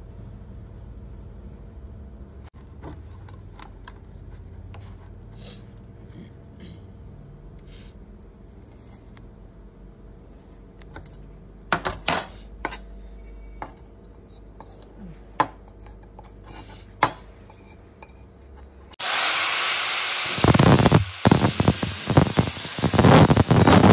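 Small clicks and knocks of steel tube and a metal square being handled on a wooden table. About 19 seconds in, an angle grinder with a thin cut-off disc starts cutting through square steel tubing, loud, with a high whine and a few brief dips.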